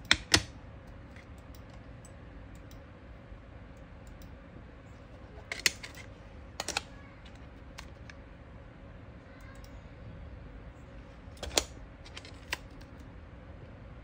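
A few sharp clicks and clacks spaced several seconds apart, from metal lighter tins and plastic display cases being picked up and set down. A faint steady hum runs underneath.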